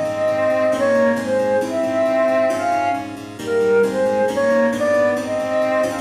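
Background instrumental music: a melody of held notes over sustained chords.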